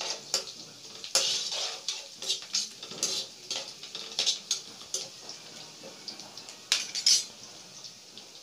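Metal spatula scraping and knocking against a coated kadai while onions, green chillies and curry leaves are stirred in hot oil, with a faint sizzle underneath. The scrapes come irregularly, loudest about a second in and again around seven seconds in.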